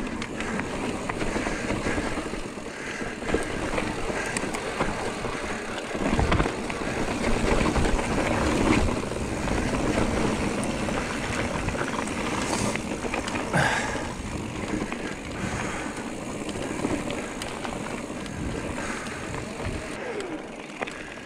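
Giant Trance E+3 electric mountain bike being ridden over a trail: steady rolling tyre and wind noise, with frequent small knocks and rattles from the bike on rough ground.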